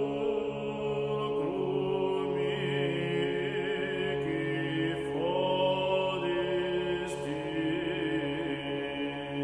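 Slow, chant-like background music: long held notes over a steady low drone, with a wavering melodic line above that shifts pitch every second or two.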